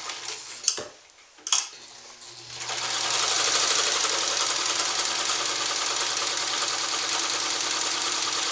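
Two sharp clicks, then about two and a half seconds in a Sterling 100 Deluxe Class 15-type sewing machine starts and runs at a steady fast speed, stitching a seam through single-layer Oxford shirting.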